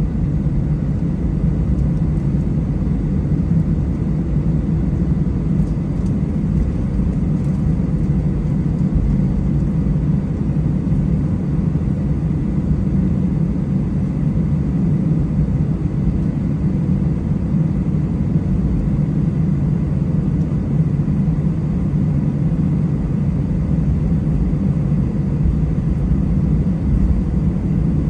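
Airbus A320 taxiing, heard from inside the passenger cabin: a steady low rumble of the jet engines with faint steady tones above it.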